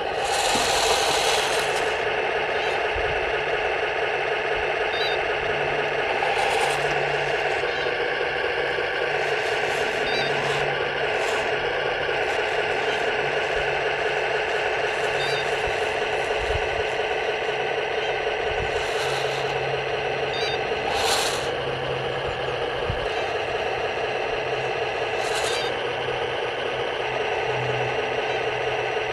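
Small electric gear motors of a 1:16 RC recovery tank model's crane whining steadily as it lifts a jeep, with a low hum that rises and falls and a few sharp clicks.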